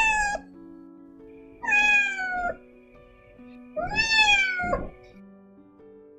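A cat meowing: the end of one meow, then two long meows about two seconds apart, each falling in pitch at the end, over soft plucked background music.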